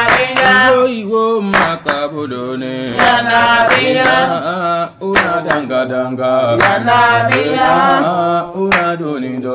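Devotional Islamic chanting in Soninke, the song of Quranic students, sung in long melodic phrases with short breaks between them.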